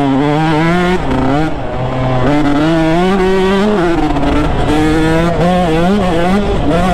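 2019 KTM 150 SX single-cylinder two-stroke engine revving under riding, its pitch rising and falling repeatedly as the throttle is opened and closed.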